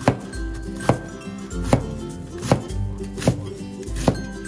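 Kitchen knife chopping on a cutting board in slow, steady strokes, about one knock every 0.8 seconds, over background music.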